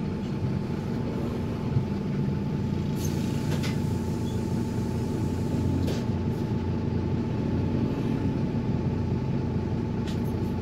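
Optare Tempo single-decker bus on the move: a steady low engine and road rumble with a constant high whine and a few sharp rattles.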